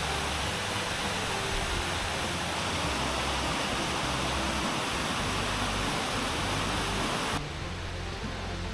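Muak Lek Waterfall's rushing water, a steady dense hiss. About seven seconds in it cuts abruptly to a quieter, duller water sound.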